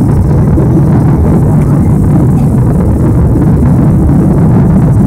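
Loud, steady low roar of a Boeing 747's jet engines and rushing air, heard inside the passenger cabin during the climb after takeoff.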